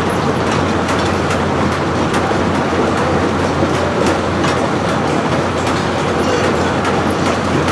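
Sawmill machinery running: a steady mechanical din over a constant low hum, with frequent clicks and clanks from the carriage and works.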